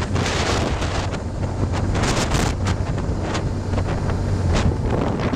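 Wind buffeting the microphone of a camera mounted on a moving motorcycle, a loud, gusty rushing, over the steady low hum of a BMW R1200GS's flat-twin engine at riding speed; the hum fades a little after four seconds.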